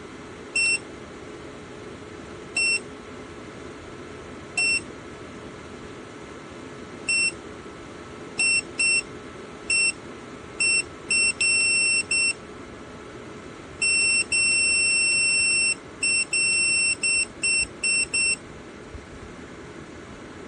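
JIBUFI 1500W PTC space heater's electronic beeper sounding a series of short, identical high beeps at irregular spacing as its controls are worked, with one beep held for nearly two seconds about two-thirds of the way through. Under the beeps, the heater's fan runs with a steady whoosh, blowing air with the heating element off.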